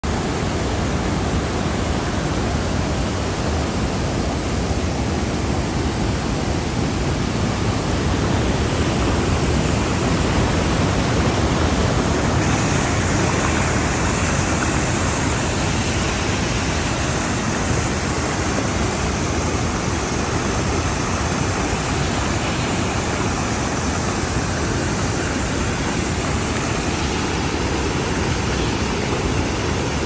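Water spilling over a curved concrete dam spillway and crashing into whitewater below: a steady, full rushing sound that turns slightly brighter about twelve seconds in.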